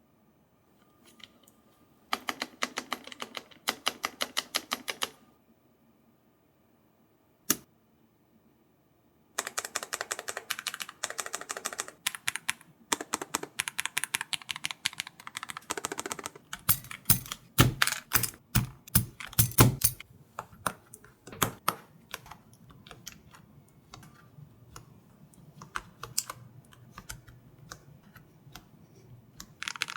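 Mechanical keyboard being typed on in quick bursts of clacking keystrokes, with a single click during a pause. About halfway through come a few seconds of heavier, deeper strikes, then lighter, steady typing.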